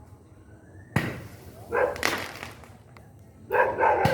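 Fireworks going off: three sharp bangs, two about a second apart early on and one near the end, with loud pitched calls in between.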